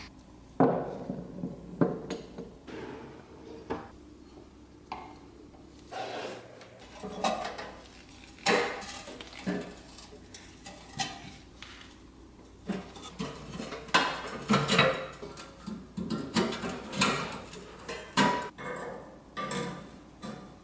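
Rusty pressed-steel Turner toy dump truck being taken apart by hand: irregular metallic clinks, taps and scrapes as the wheels come off and pliers and a small screwdriver work at the sheet-steel tabs of the cab.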